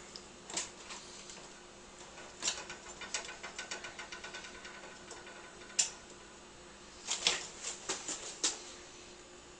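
Light clicks from an oven's controls being set to preheat: a run of quick, regular clicks, about four or five a second, for a couple of seconds in the middle, with a few scattered clicks before and near the end.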